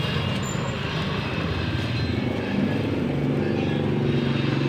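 A motor vehicle engine running steadily with a low hum, growing a little louder about halfway through.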